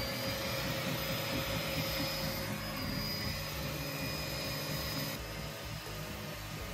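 TwoTrees SK1 CoreXY 3D printer running a print: a steady whir from its fans with a thin high whine over it as the print head moves. The sound changes abruptly about five seconds in.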